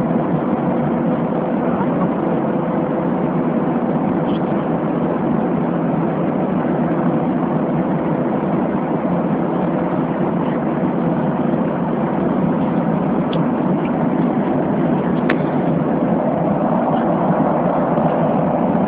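Steady cabin noise inside an airliner in flight: the engines and the rush of air past the fuselage, with a faint steady hum and a few small ticks.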